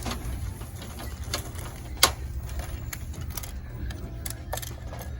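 Scattered sharp plastic clicks and taps, the loudest about two seconds in, as two AA batteries are fitted into an Olympus Trip AF30 point-and-shoot film camera and it is handled, over a steady low background rumble.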